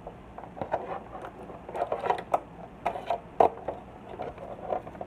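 Irregular clicks and knocks of a model boat's hull and fittings being handled, the loudest a sharp knock about three and a half seconds in.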